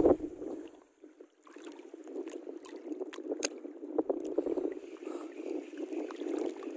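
Water lapping and sloshing, with a loud knock or splash at the very start and a few sharp clicks or knocks about three and a half and four seconds in.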